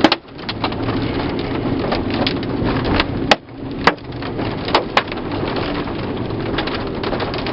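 Hail and heavy rain drumming on a Chevy Suburban, heard from inside the cabin, with a handful of louder sharp cracks from single big hailstones striking the body.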